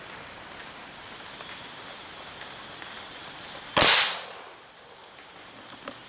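A single sharp gunshot about four seconds in, with a short echo trailing off, over faint quiet forest background.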